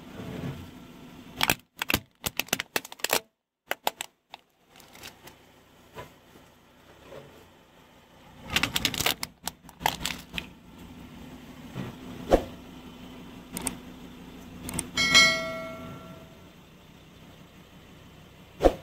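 Hard plastic cracking and snapping under a slowly rolling car tyre: clusters of sharp cracks as a plastic toy figure is crushed, with a brief ringing squeak about fifteen seconds in and another loud crack near the end as a plastic bottle is pressed.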